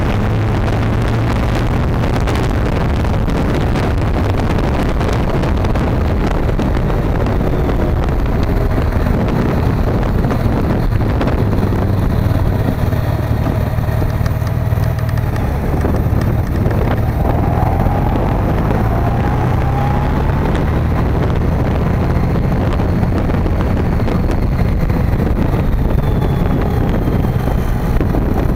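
Motorcycle engine running under way, with wind rushing over the microphone. About halfway through, the engine pitch climbs as the bike speeds up.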